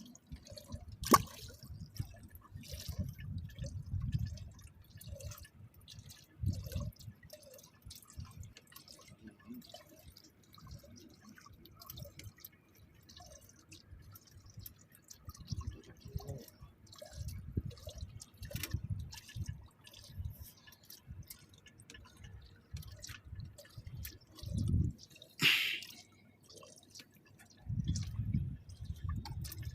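Water dripping with small splashes and scattered light knocks, and one sharper splash about 25 seconds in.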